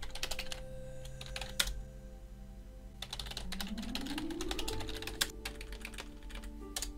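Typing on a computer keyboard: a quick run of keystrokes, a sparse pause of about a second, then a second longer run, with a few last key presses near the end.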